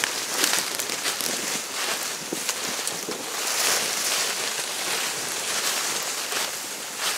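Dry fallen leaves rustling and crackling, with scattered small clicks.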